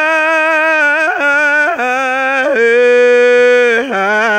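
A man singing unaccompanied, holding one long vowel with vibrato and stepping down through a few held notes, the last and lowest coming near the end.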